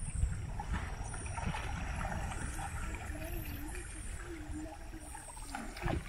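River water trickling and gurgling, over a low uneven rumble. A faint wavering tone comes in about halfway through.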